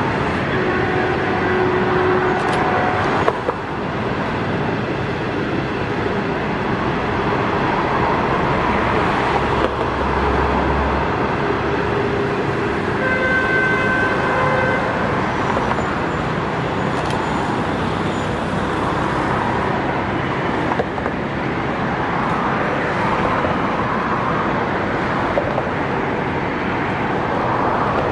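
Steady rumble of a passenger train's coaches rolling past on the track, blended with surrounding traffic noise. Brief horn notes sound about a second in and again about thirteen seconds in.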